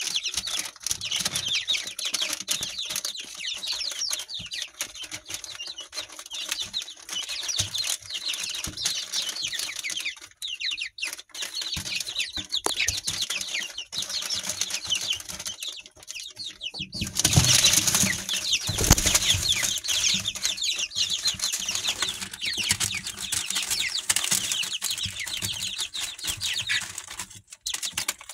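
A brooder full of young, partly feathered chicks peeping constantly, many short falling peeps overlapping, with wings flapping and scuffling among them. A louder flurry of flapping and scuffling comes about 17 seconds in and lasts a couple of seconds.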